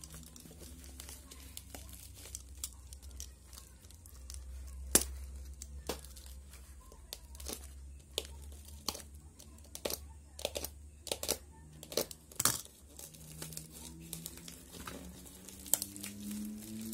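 Packaging being opened by hand: crinkling and tearing, with scattered sharp clicks and taps, over a low steady hum.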